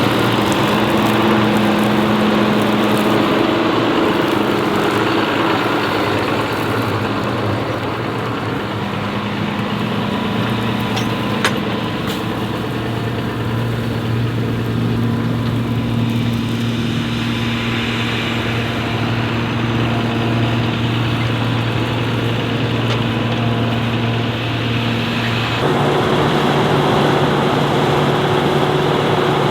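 Diesel engine of harvest machinery running steadily with a low drone, its note stepping up in pitch near the end. There is one sharp click a little before halfway.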